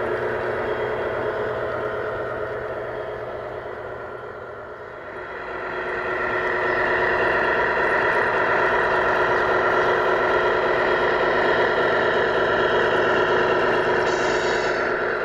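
Radio-controlled model truck running with a steady, engine-like drone. The drone dips about five seconds in, then comes back louder and holds steady.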